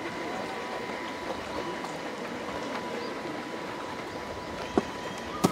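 Steady outdoor background noise with a faint, steady high tone running under it. Two sharp clicks come near the end, a little over half a second apart.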